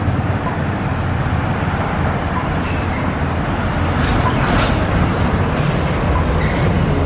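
Road traffic noise: a steady low rumble of vehicles, with one passing a little louder about four seconds in.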